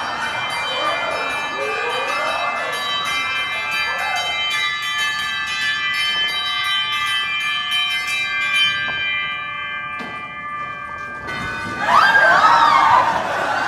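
Bells ringing in a fast peal of many overlapping strikes, with shrieking and laughing voices over them. The bells stop about eleven seconds in, and loud wailing shrieks follow near the end.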